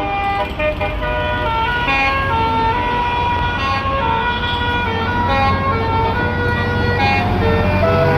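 Basuri 36-note telolet bus horn playing a tune: a run of held notes stepping up and down in pitch, each lasting a fraction of a second to about a second, over a bus engine running low.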